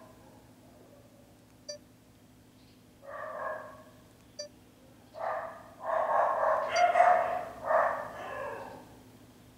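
A dog barking in bursts, once about three seconds in and then in a longer run through the second half, with two short electronic beeps from the camcorder's touchscreen menu in between.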